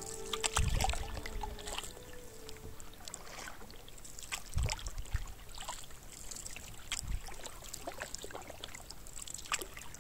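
Canoe being paddled: paddle blades splashing and water trickling off them, with scattered clicks and a few dull low thuds at irregular intervals.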